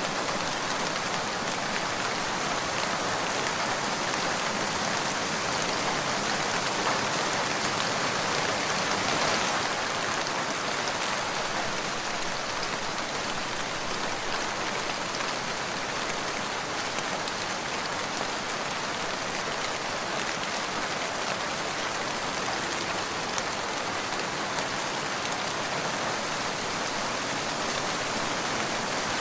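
Steady rain falling on a surface, a constant patter of drops.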